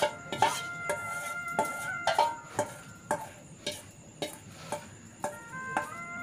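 Background music: a percussion beat about twice a second under held melody notes.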